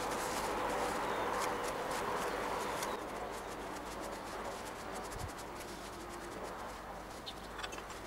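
Paper tissue rubbing and wiping a polished brass petrol-lighter case, then light clicks and taps as the metal parts are handled. A bird calls faintly in the background.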